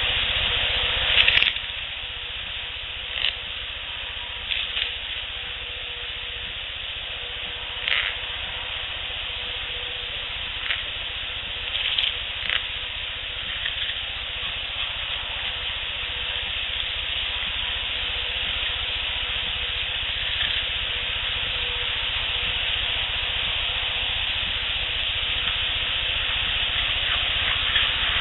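Steady hiss of an outdoor field recording, with about eight short clicks or snaps scattered through the first half, the loudest a little over a second in, and only the hiss after that.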